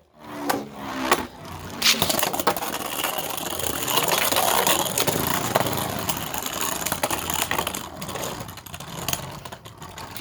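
Two Beyblade spinning tops, a 3D-printed Apollo and a Shatter, launched into a plastic stadium, then spinning, scraping and clashing with many sharp clacks, the clatter easing off near the end.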